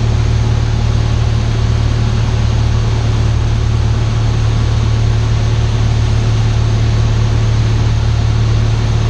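Cessna 172 Skyhawk's piston engine and propeller droning steadily in flight, heard from inside the cockpit as a constant low hum with a hiss of air noise over it.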